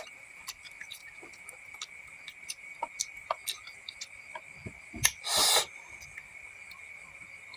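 Close-miked eating sounds: scattered small mouth clicks while chewing, with one louder, noisier burst about five seconds in. A steady high-pitched trill runs underneath.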